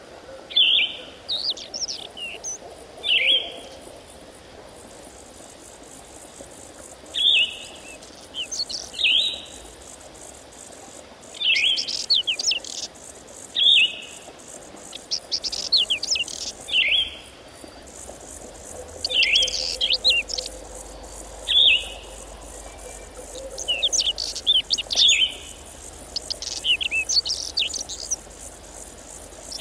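A songbird singing short, quick, chirping phrases, one every one to three seconds, over a faint steady high hiss.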